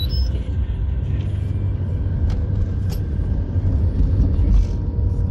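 Road noise inside a car's cabin as it pulls away from a toll gate onto the highway: a steady low rumble of engine and tyres. Two short high beeps at the very start, and a couple of sharp clicks a few seconds in.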